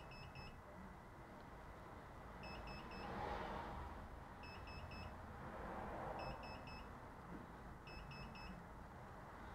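Faint electronic beeper sounding quick clusters of short high beeps, five clusters about two seconds apart, over a low background hiss.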